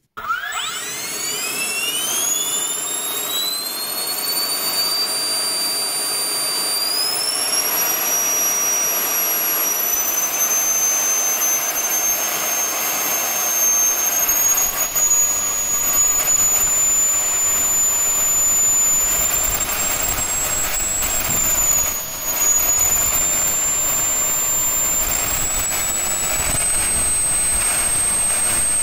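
Electric ducted fan blowing through 3D-printed ducting, spinning up from rest on a thrust test stand: a high whine that rises quickly, then climbs in steps as the throttle is raised toward full power, with a brief dip about three quarters of the way through.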